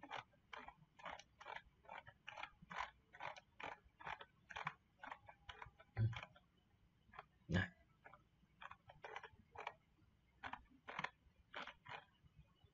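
Faint, quick clicking at a computer, about four clicks a second, as a stock chart is scrolled back through its price history. Two heavier knocks come about six and seven and a half seconds in.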